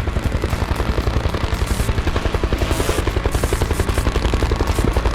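Rapid, steady mechanical pulsing, about nine even beats a second, heaviest in the low end.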